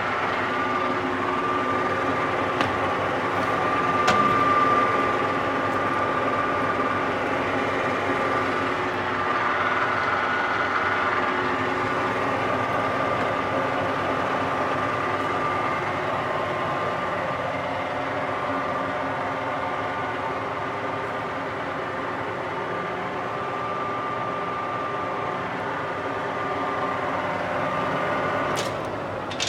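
Colchester Triumph 2000 centre lathe running, a steady mechanical whine with a couple of light clicks; the sound drops away near the end.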